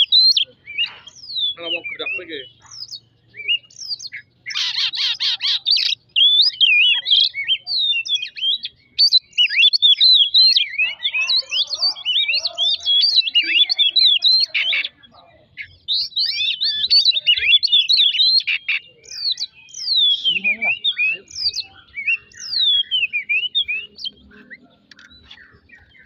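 Oriental magpie-robin (kacer) singing long runs of rapid, varied high whistles, broken by short pauses, with a harsh rasping stretch about five seconds in.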